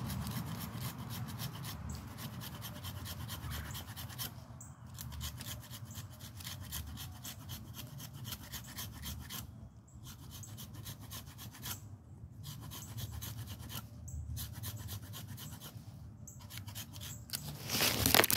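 Knife blade scraping and rasping into pine bark and wood, cutting a notch for sap, in rapid continuous strokes broken by a few short pauses. A louder knock comes near the end.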